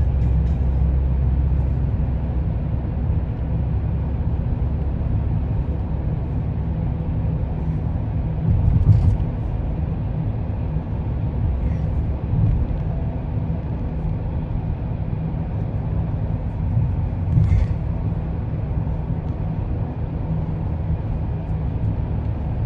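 Steady low rumble of a car heard from inside its cabin. Two brief louder knocks stand out, one about a third of the way in and another about three quarters of the way in.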